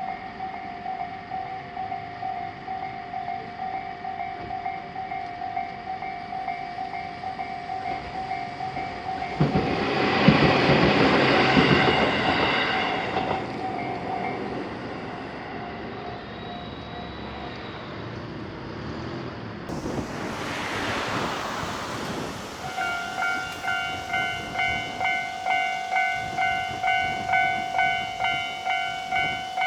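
A Japanese level-crossing warning bell rings with a steady, evenly pulsing electronic tone while a train passes, loud for about four seconds some ten seconds in. The bell falls silent. After another rush of train noise a little past the middle, the bell starts ringing again in regular strokes near the end.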